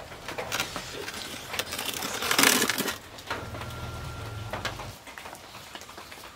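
Metal baking tray scraping and clinking as it is pulled out of a brick oven. The loudest scrape comes about two and a half seconds in.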